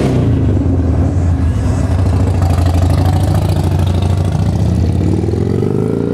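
Harley-Davidson Sportster 1200's air-cooled V-twin idling steadily through its factory exhaust, with the pitch rising a little near the end. The exhaust has some volume to it and sounds as if the baffle has been taken out.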